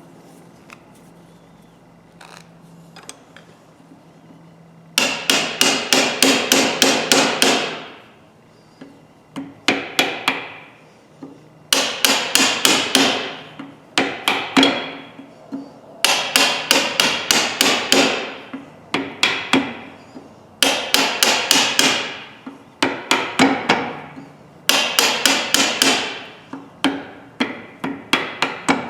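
Hammer blows on steel pliers, struck rapidly in runs of a second or two with short pauses between, each strike ringing; it starts about five seconds in. The hammering is working loose the rust-seized pivot joint of the pliers.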